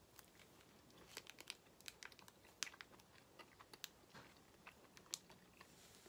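Faint mouth sounds of a man chewing a piece of soft white cheese: scattered small clicks and smacks over a quiet room.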